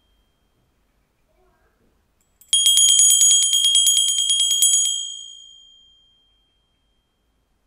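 A small handbell shaken rapidly, its clapper striking about nine times a second for about two seconds, with a bright, high ring. The bell is then stilled and the ring fades away.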